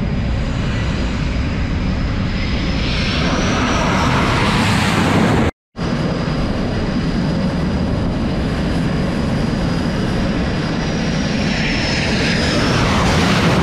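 F/A-18 Super Hornet twin jet engines running at full power for a catapult launch, loud and steady with a high whine that rises as the jet goes. This happens twice, with a sudden brief dropout of all sound about five and a half seconds in.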